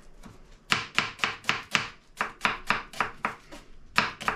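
Kitchen knife slicing an onion on a cutting board: a quick, even run of sharp strokes, about four a second, starting about half a second in, with a brief pause near the end.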